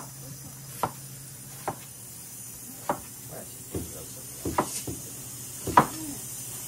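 Kitchen knife chopping on a cutting board in slow, uneven strokes, about one sharp knock a second.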